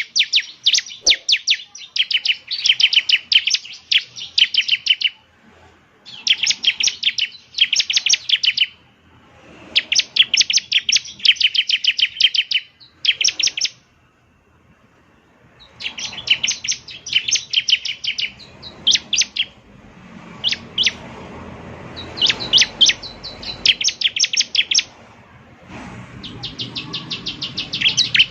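Bar-winged prinia (ciblek) singing: phrases of rapid, high, sharp chirping notes, each lasting one to three seconds, separated by short pauses. A faint hiss of background noise lies under the song in the second half.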